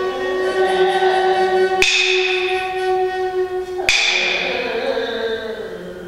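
A saxophone holds one steady note while a metal percussion instrument is struck twice, about two and four seconds in, each strike ringing out bell-like and slowly dying away. The held note stops at the second strike.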